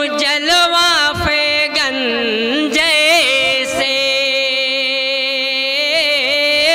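A man singing a naat into a microphone without words, drawing out ornamented notes that waver and bend in pitch. About halfway through he holds one note steady for about two seconds.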